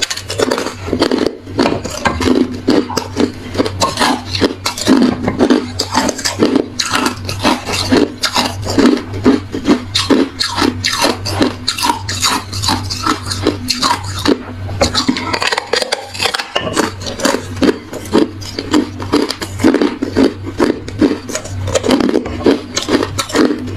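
Hard reshaped ice being chewed close to the microphone: a fast, unbroken run of sharp crunches.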